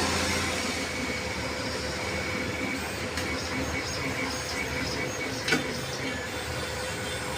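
Cutting plotter's stepper motors running, driving the carriage and media in a test movement with no blade fitted, with a steady hum and short whining tones that come and go. One sharp click about five and a half seconds in.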